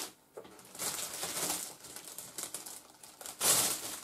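Small plastic packets rustling and crinkling as they are handled, in short bursts, loudest near the end.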